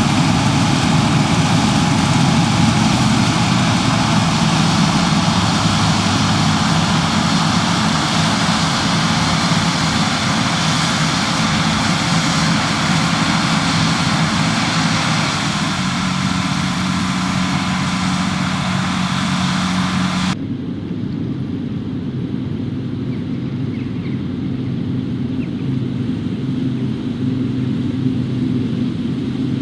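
Heavy harvest machinery running steadily under load: an engine hum with a dense mechanical hiss above it. About twenty seconds in the sound changes abruptly, the hiss dropping away and leaving a lower engine hum.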